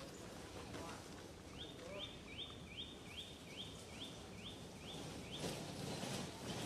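A bird calling: a run of about ten identical quick, high notes at roughly two and a half a second, over quiet outdoor ambience. A short rustling noise follows near the end.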